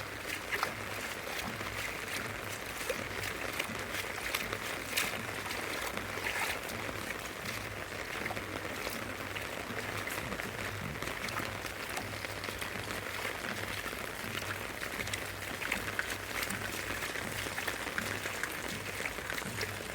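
Steady rain falling: a dense, even hiss of drops with many small sharp drop hits scattered through it, over a faint low steady hum.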